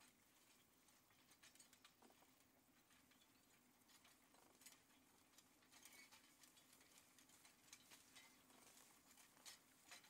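Near silence: faint outdoor ambience with scattered soft ticks and crackles.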